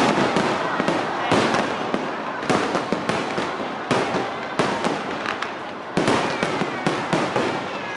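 Fireworks display: a rapid run of sharp bangs and cracks over a constant crackle, with louder bursts every second or so.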